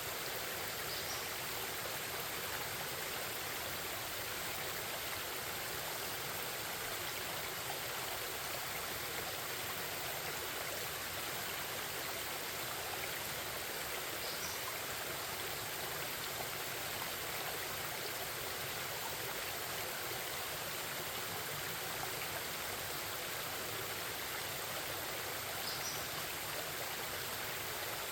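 Forest stream babbling and rushing steadily over rocks. Three faint, brief high chirps from a bird, about twelve seconds apart.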